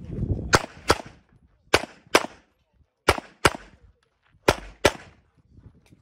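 Pistol shots: eight sharp reports fired in four quick pairs, each pair about a third of a second apart, with a little over a second between pairs.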